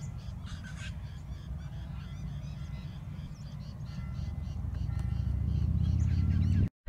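Many birds calling in short chirps over a low rumble of wind buffeting the microphone. The wind rumble grows louder in the second half, and the sound cuts off abruptly just before the end.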